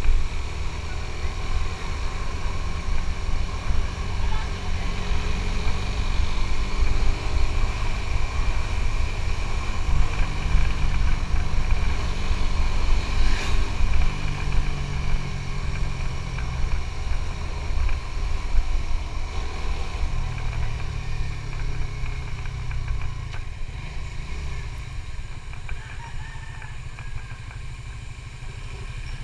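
Suzuki GSX-S150's 150 cc single-cylinder engine running under way, over a heavy, uneven rumble of wind on the microphone. The engine note shifts a few times, and the overall level eases off toward the end.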